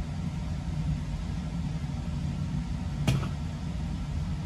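Steady low hum of background room noise, with a single sharp knock about three seconds in.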